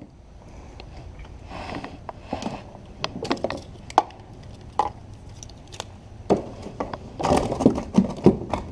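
Irregular clicks, knocks and scrapes of a spinning rod and reel being handled in a plastic kayak, close to the microphone, over a low steady background. The knocks come thickest near the end.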